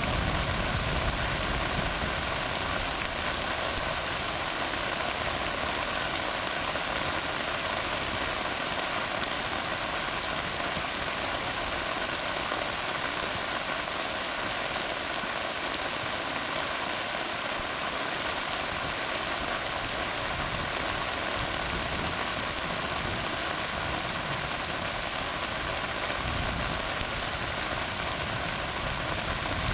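Steady rain falling on a tar road: an even hiss with fine drop ticks. A low rumble swells at the start and again near the end.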